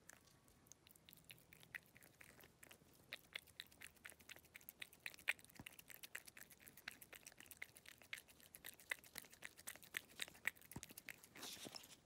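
A cat licking purée from a squeeze-tube pet treat: faint, quick wet smacking clicks of its tongue, several a second and irregular, coming thicker and a little louder after the first few seconds.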